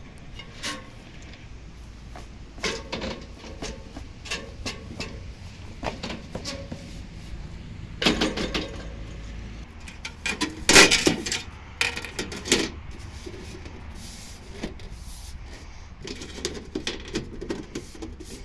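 Irregular knocks and clunks of someone climbing a wooden extension ladder, feet and hands on the rungs, with the loudest cluster of knocks about eleven seconds in.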